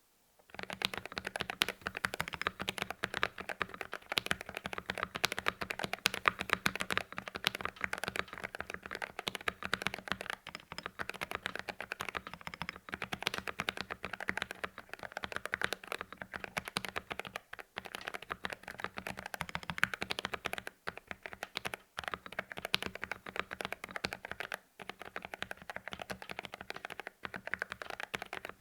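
Custom GMMK Pro mechanical keyboard with lubed Kailh Box Red linear switches, a polycarbonate plate and a tape-modded PCB, typed on quickly and continuously with a sorta dry sound. A few brief pauses break the typing in the second half.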